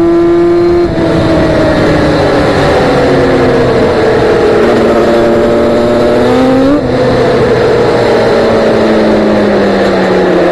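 A ported 2002 Yamaha Banshee's 350cc twin-cylinder two-stroke engine running through Rocket expansion-chamber pipes under way. Its pitch holds high, drops suddenly about a second in, sags slowly, climbs briefly and drops sharply again near seven seconds, then falls away gradually.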